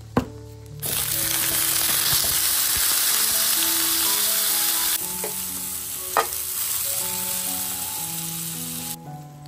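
Hot dog sausages sizzling as they fry in oil in a non-stick frying pan, starting abruptly about a second in and cutting off near the end, with a single sharp pop partway through.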